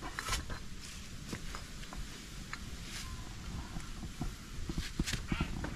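Small clicks and light metal knocks as the parts of a Rajdoot motorcycle's carburettor are handled and its float bowl cover is fitted back on, with a few sharper clicks near the end.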